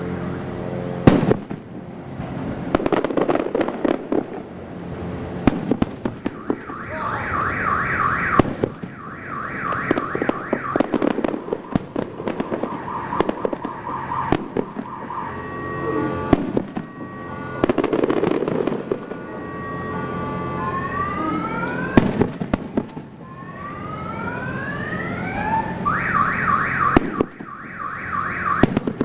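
Aerial fireworks bursting in a string of sharp bangs. Shrill warbling whistles come twice, and several whistling shells rise in pitch about two-thirds of the way through.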